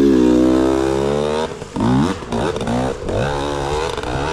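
Dirt bike engine running and revving: a held rev for about a second and a half, a short drop, then the revs rising and falling a few times before it runs steadily again.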